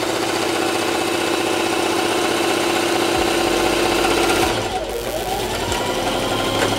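Electric sewing machine running at speed, stitching a seam through layers of tulle. About five seconds in the motor briefly slows, then speeds up again.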